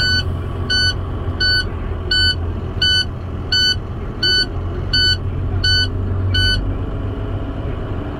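Reversing alarm beeping steadily, about three beeps every two seconds, over a big-rig diesel engine's low rumble. The beeping and the deepest part of the rumble stop about six and a half seconds in, as the vehicle stops backing.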